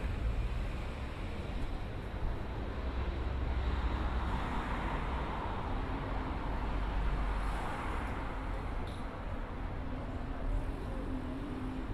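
Road traffic: a car passing, its tyre and engine noise swelling to a peak about five seconds in and then fading, over a steady low traffic rumble.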